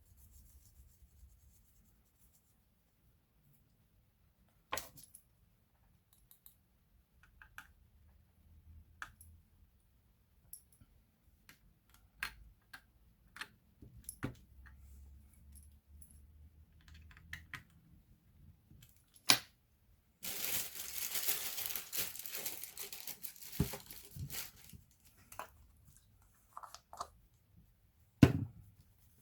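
Hands working on a laptop under repair: scattered clicks and taps of small parts and tools. About two-thirds through comes a few seconds of dense rasping noise, and a sharp click near the end.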